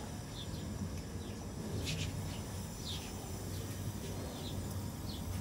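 Single-burner camping gas stove burning steadily at full flame under a cast grill plate, a low, even rush. Faint short chirps sound high above it, and there is one sharp click about two seconds in.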